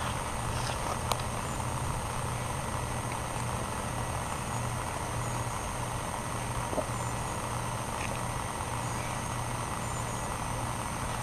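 A steady, even engine-like drone, with one sharp click about a second in.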